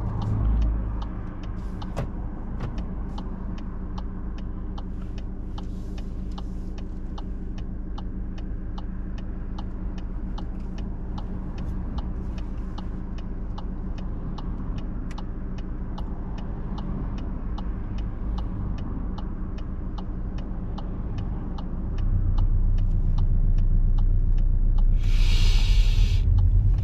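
A car's turn indicator ticks steadily over the low hum of the idling engine as the driver signals to move off from the kerb. After about 22 seconds the engine gets louder as the car pulls away, and a brief hiss follows near the end.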